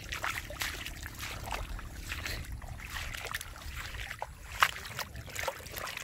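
Irregular small splashes and sloshing in shallow muddy rainwater on a flooded dirt track, over a low steady rumble.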